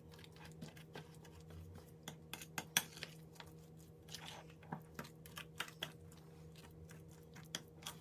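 A utensil mixing soft butter with herbs and seasoning in a bowl: irregular soft taps, clicks and scrapes against the bowl, over a faint steady hum.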